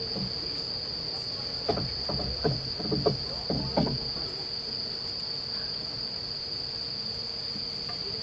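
Steady high-pitched chorus of crickets or other evening insects, droning without a break. A few short, louder pitched sounds cut in between about two and four seconds in.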